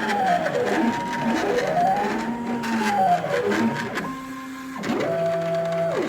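Stepper motors of a home-built CNC pen plotter whining as the axes move, the pitch rising and falling smoothly over and over as the pen traces curves. Near the end it changes to a couple of steady held tones at a constant pitch.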